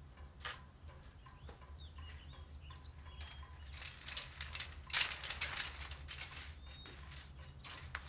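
Quiet room with a low steady hum and a few faint high chirps. About four seconds in, a bead curtain clatters briefly as someone pushes through it.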